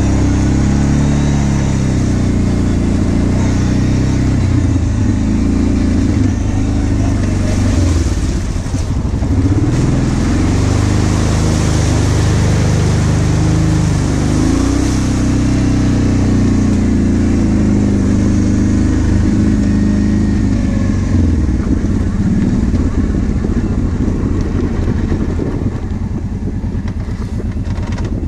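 Kawasaki KVF 750 Brute Force ATV's V-twin engine running under way, its pitch rising and falling as the throttle is opened and eased off.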